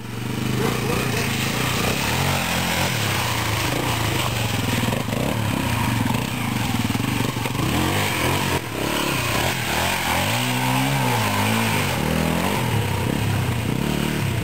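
Honda XL250R dirt bike's single-cylinder four-stroke engine running as it is ridden off-road, the revs rising and falling with the throttle, with a clear drop and climb in revs about ten seconds in.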